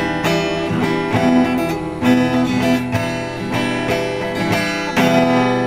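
Acoustic guitar strummed in the song's closing chords, with no voice. A final, stronger chord about five seconds in is left ringing and starts to fade.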